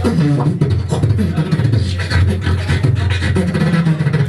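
A beatboxer performing into a cupped handheld microphone: a continuous deep bass line with quick clicks and snare-like hits over it.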